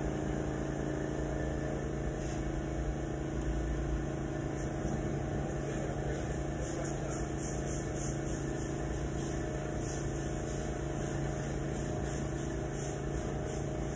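Steady mechanical hum throughout. From about four seconds in, short soft swishing strokes repeat as a squeegee is worked over the wet window glass.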